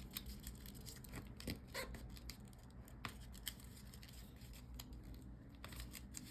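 Faint rustles and crisp short clicks of origami paper being handled, a pocket opened and the paper folded and creased, coming irregularly every second or so.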